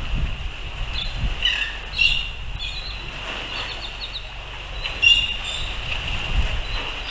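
Wind buffeting the microphone in gusts, over a steady high whine, with scattered short high chirps, the loudest about five seconds in.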